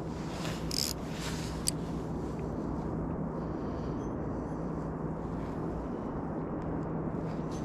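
Steady wind noise on the action camera's microphone, a low even hiss, with a couple of faint clicks in the first two seconds.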